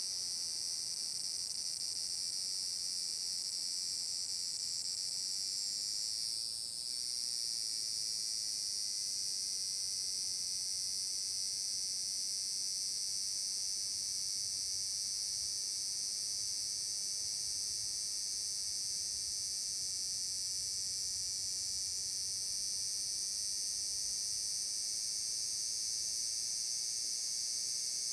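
Large brown cicada (aburazemi) singing: a steady, high-pitched drone that dips briefly about six and a half seconds in.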